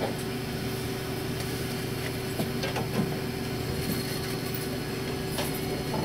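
Steady mechanical hum with a constant held tone inside the cab of a Kumamoto Electric Railway 5000 series electric railcar, with a few light clicks.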